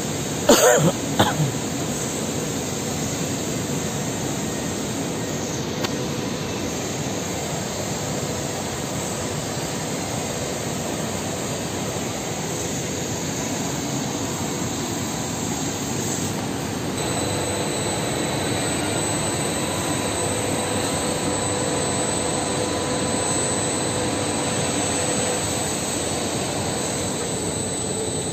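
Steady machinery roar filling an enclosed indoor snow hall. A steady hum joins in a little past halfway. A brief loud voice-like sound, like a cough, comes about a second in.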